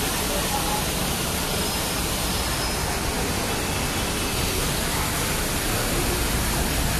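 Steady, even rushing of a fountain's water jets splashing into its basin, with street traffic underneath.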